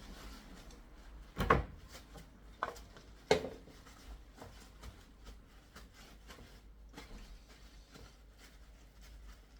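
Kitchen handling sounds: a few sharp knocks and clunks, the loudest about a second and a half in and at about three seconds, then fainter clicks and rustles.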